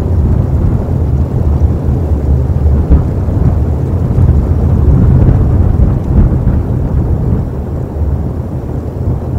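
Wind buffeting an outdoor nest-cam microphone: a loud, steady low rumble, easing slightly near the end.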